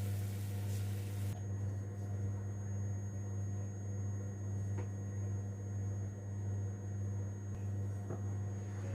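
Steady low hum, with a faint hiss that drops away about a second in and a couple of faint ticks.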